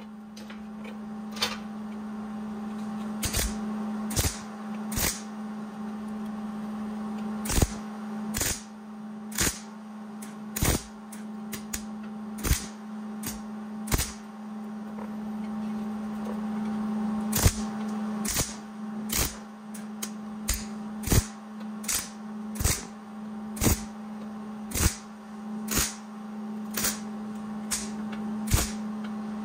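MIG welder laying a long series of short tack welds on a rusty steel headlight bucket. About two dozen brief crackling bursts, each well under a second, come at irregular intervals of roughly one a second, with a couple of longer pauses, over a steady low hum.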